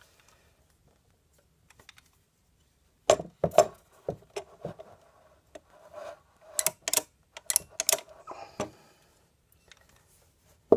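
Sharp clicks and knocks of an old metal elevator call-button fixture being handled and turned close to the microphone, in a quick irregular cluster starting about three seconds in and ending a second or two before the end.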